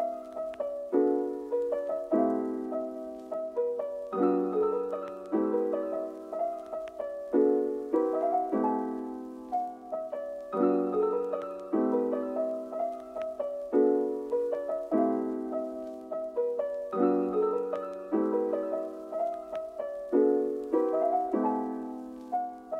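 Background piano music: a slow phrase of struck notes and chords that fade and repeat.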